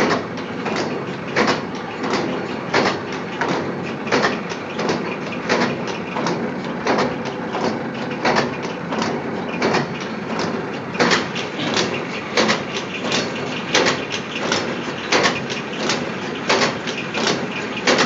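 A machine for air-filter media, with a reciprocating blade, running steadily: a sharp mechanical clack about every 1.4 seconds, with lighter clicks and a constant clatter between strokes.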